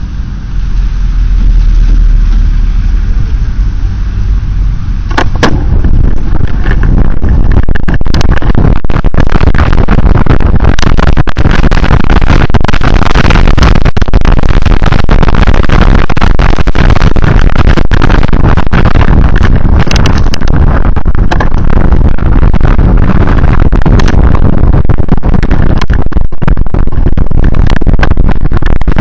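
Wind buffeting an exposed microphone while moving in the rain, loud and distorted. A low vehicle drone for the first few seconds gives way, about five seconds in, to a dense crackle of rapid pops and clicks.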